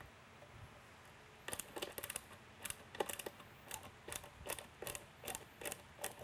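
Phillips screwdriver backing out a dome screw from the base of a strobe beacon: a faint string of small sharp clicks, about two or three a second, starting a second and a half in.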